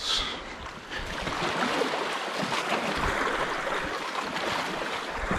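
Steady seaside ambience: an even rushing noise that swells about a second in and holds.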